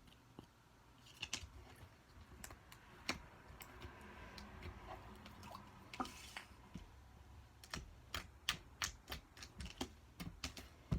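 Slime being squeezed and poked, making sharp little clicks and pops as air pockets burst. The pops are scattered at first and come several a second over the last few seconds.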